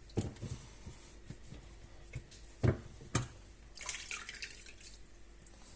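Sponge soaking up standing water from the bottom of a dishwasher and dripping and splashing as it is wrung out, with two sharp knocks near the middle.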